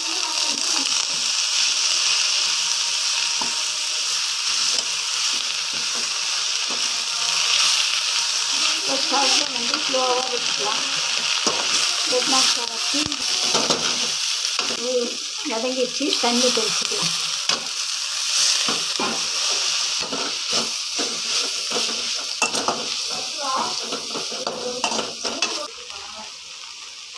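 Drumstick leaves frying and sizzling in a kadai, stirred with a perforated metal ladle that scrapes and taps against the pan. The sizzle eases off near the end.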